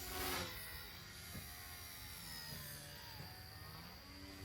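XK K110S micro RC helicopter in flight: the small electric motor and rotor give a steady high whine whose pitch shifts up and down as it manoeuvres, with a short rushing whoosh at the very start.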